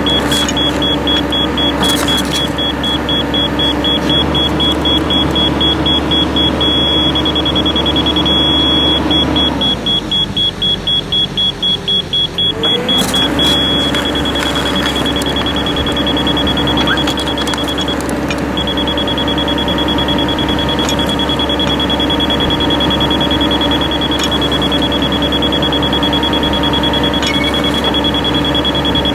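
Hydraulic drive head and its carrier machine running steadily while driving a ground screw, with a hum that drops away for about three seconds around the middle and then climbs back. Over it, a high electronic beep from the digital level held on the screw pulses rapidly at first and then holds steady.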